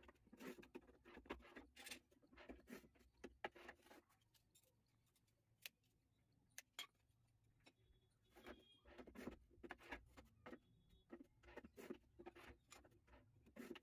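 Faint clicks and knocks of ceramic tiles being handled and set on a manual tile cutter, with a quiet stretch in the middle.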